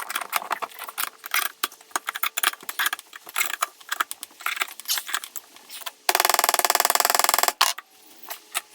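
Irregular sharp metallic clicks and taps for several seconds. Then, about six seconds in, a power tool gives a rapid hammering rattle for about a second and a half, in an attempt to free a seized part on an old strut's shock absorber before resorting to cutting it.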